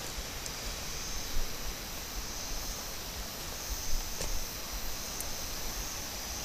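Forest ambience: a steady high-pitched insect drone over a low rustling hiss, with a few soft bumps.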